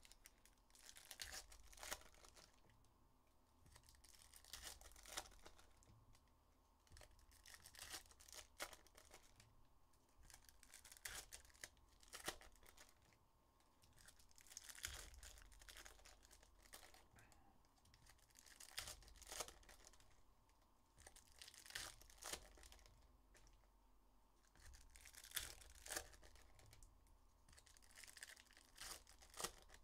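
Faint tearing and crinkling of Upper Deck hockey card pack wrappers being ripped open by hand, in short bursts every few seconds, with cards being handled between them.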